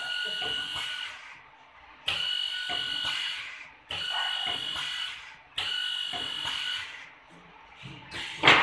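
Two-row multi-spindle wood drilling machine's drill motors starting and running briefly four times in a row, each run a steady whine of a second or so that starts suddenly and dies away. Near the end, a short loud burst of noise.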